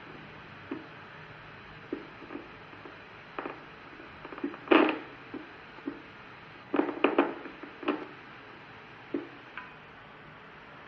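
EMG machine loudspeaker playing a needle recording from a resting hand muscle: a steady hiss broken by irregular, random pops, the loudest just before five seconds in and a quick cluster around seven seconds. The spontaneous discharges are fasciculation potentials, a sign of the motor neuron loss in ALS.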